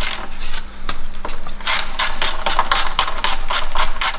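Small hand ratchet clicking as it is swung back and forth on a fastener at the oil pan, undoing it to drain the oil. A few scattered clicks at first, then from about two seconds in a fast, even run of about six or seven clicks a second.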